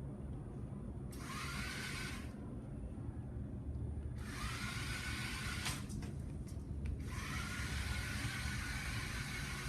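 Small electric gear motors of a robot car whirring in spells: a short run about a second in, then a longer run from about four seconds in. Each run starts with a whine that rises slightly as the motors spin up.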